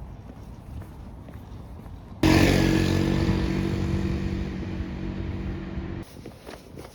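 A loud steady mechanical drone with a low hum starts suddenly about two seconds in, fades slowly, and cuts off abruptly about six seconds in.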